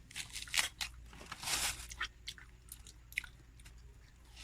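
Close-up biting and chewing of juicy watermelon: a run of short crunches and clicks, with a longer crunch about a second and a half in.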